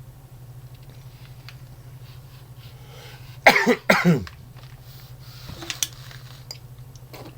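A man coughing twice in quick succession about halfway through, a lingering cough from a cold.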